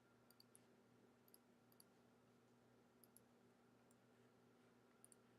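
Near silence with faint, scattered computer mouse clicks, some in quick pairs, over a faint steady hum.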